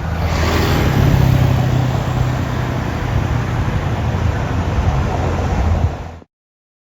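A motor vehicle engine running steadily amid traffic noise, with a low hum under it; it cuts off suddenly near the end.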